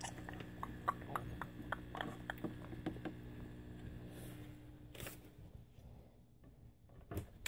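Faint, irregular clicks and taps of small plastic toys being handled on a tabletop, with a few slightly louder knocks later on.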